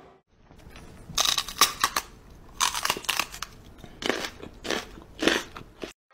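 A German Shepherd nibbling a cat's fur with its front teeth, heard close up as about five bouts of crisp crunching and clicking with short pauses between them.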